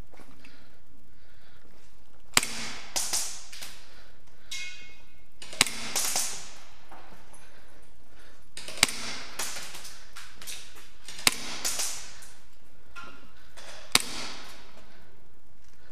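Five sharp cracks, roughly three seconds apart, each followed by a short hiss and one or two fainter clicks, over a steady background hiss.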